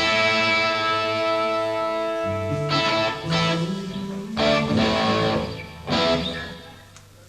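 A live band starts a song with a held electric guitar chord. Low notes join about two seconds in, then several strummed chords ring out, and the sound drops away near the end.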